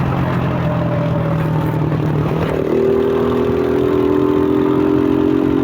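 Suzuki Fiero motorcycle's single-cylinder four-stroke engine, breathing through a K&N RC1060 air filter, running steadily under way. About halfway through, a louder, higher steady note takes over.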